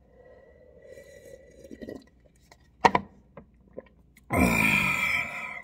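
A man drinks ramen broth from a paper cup with quiet sipping and a click of a swallow, then lets out a loud burp of about a second, falling in pitch, near the end.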